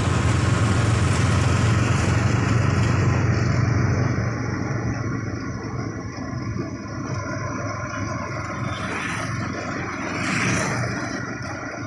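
Motor vehicle running along a road, with engine drone and rushing road and wind noise; the low engine drone drops off about four seconds in, as if easing off the throttle.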